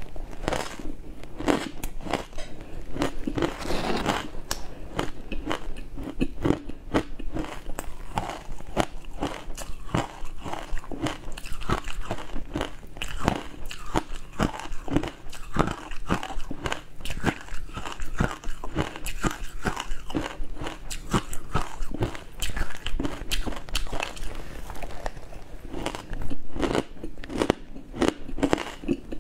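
A person biting and chewing mouthfuls of matcha-coated crumbly ice close to the microphone: a dense, irregular crackle of crunches.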